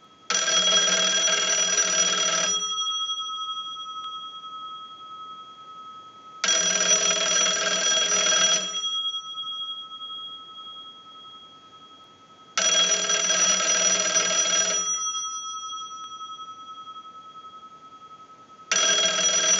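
Kellogg wooden wall telephone's twin bell gongs ringing in a regular cadence of about two seconds on and four off, four rings in all, the last starting near the end, driven by a ring signal like an incoming call. The gongs ring on faintly between rings.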